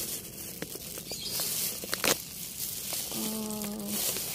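Rustling and crackling of a plastic glove working through soil and roots around a mango ginger rhizome in a planter bag, with several sharp snaps as roots and rhizome pieces break. A short hummed voice sound about three seconds in.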